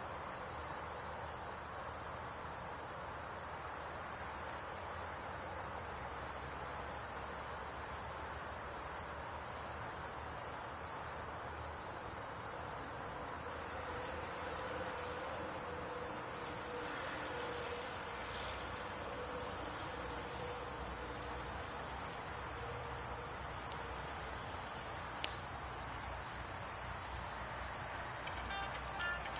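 A steady chorus of insects such as crickets, a high, even drone that never lets up.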